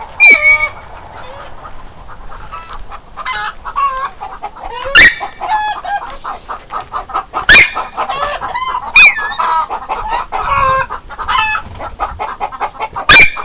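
Chickens clucking and squawking continuously in a coop. Five loud, sharp cries stand out: one near the start, three spread through the middle and one at the end.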